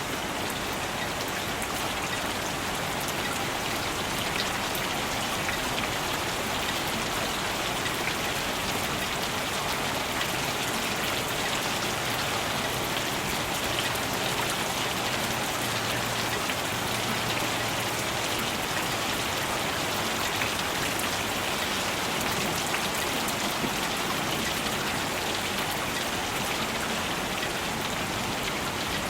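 Steady rain falling, a continuous patter of many drops striking surfaces.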